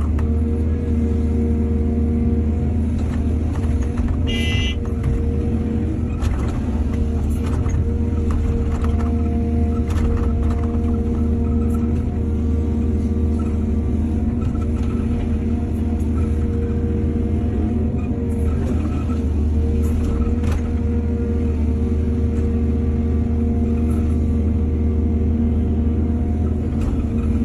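Heavy diesel earthmoving machinery running steadily, with scattered clanks and knocks. A brief high-pitched tone about four and a half seconds in.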